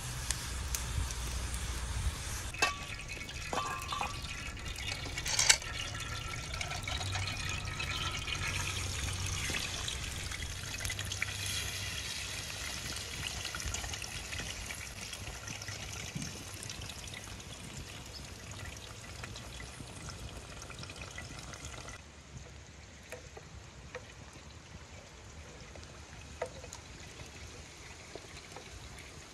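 Cooking oil poured in a thin stream into a metal pan set over a wood fire, with a steady trickling hiss and a few sharp clinks of metal cookware in the first several seconds. The sound drops quieter about 22 seconds in.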